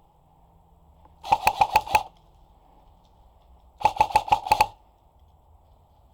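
Airsoft gun firing two quick strings of shots, each about six or seven sharp cracks at roughly eight a second: one about a second in, and another about two and a half seconds later.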